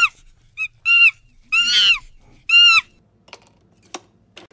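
A run of about five high-pitched squealing animal calls, each rising then falling in pitch, the middle one longer. Near the end come a few sharp clicks, the loudest from a capsule coffee machine's button being pressed.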